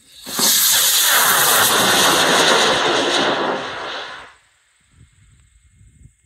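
Hobby high-power rocket motor firing at liftoff: a loud hissing roar that starts suddenly and burns for about four seconds, its tone sweeping as the rocket climbs, then easing and fading out.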